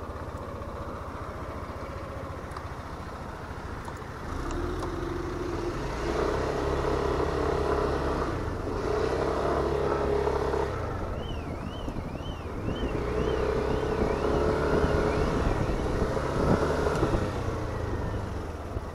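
Yamaha XMAX 125 scooter's single-cylinder engine running under way, its pitch rising and falling in several pulls of the throttle.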